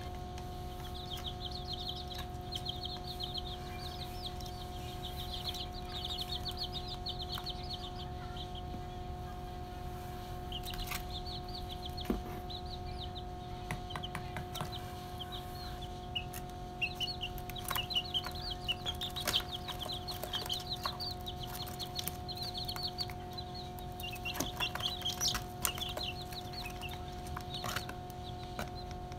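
A flock of young chicks peeping in quick runs of short, high cheeps, over a steady low hum and a few sharp clicks.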